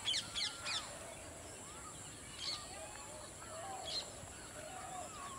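Small birds chirping: three quick, sharp chirps at the start, then single chirps about two and a half and four seconds in.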